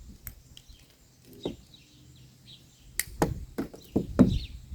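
Handling noise of a barbed hose fitting and hose clamp being worked onto a garden hose: a few sharp clicks and knocks, coming more often near the end.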